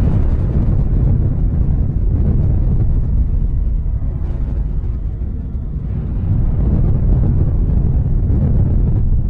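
Nuclear explosion's loud, steady low rumble as its fireball rises.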